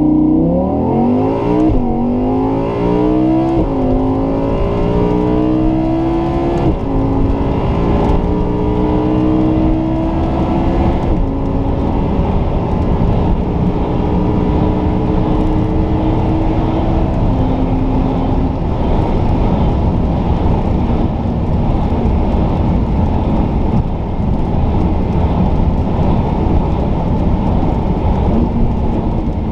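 Audi R8's 5.2-litre V10 heard from inside the cabin, accelerating hard from low speed in manual mode. The engine note climbs and drops sharply at four quick upshifts in roughly the first eleven seconds, then settles into a steadier high-speed drone in the top gears.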